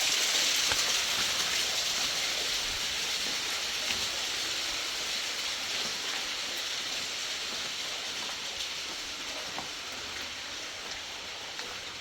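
Steady hiss of water, fading slowly and evenly.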